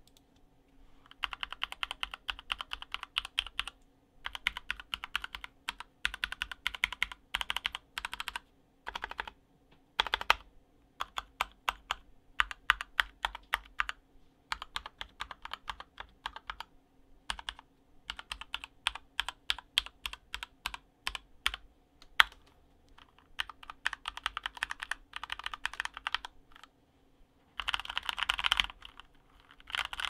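Stock Keychron K10 mechanical keyboard with Gateron Pro Red linear switches, on a desk mat, being keyed in quick runs of clicking keystrokes broken by short pauses, starting about a second in.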